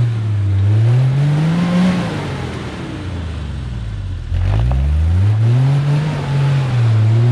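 Toyota LandCruiser 80 series engine revving up and down as it climbs a steep, rutted hill: the revs rise, dip low about halfway through, climb again and then settle.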